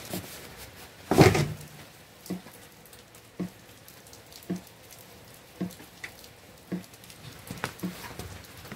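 Night rain at a window: a light steady patter with a single drip landing about once a second, evenly spaced, and one louder burst of noise about a second in.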